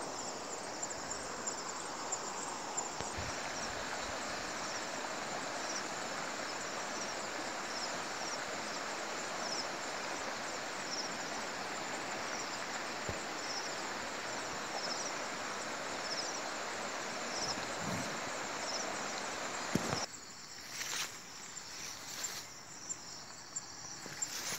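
Insects calling in hillside scrub: short high chirps repeating about once a second and a faint high steady buzz, over a steady rushing background noise. The rushing cuts off suddenly about twenty seconds in, and leaves rustle as someone pushes through undergrowth near the end.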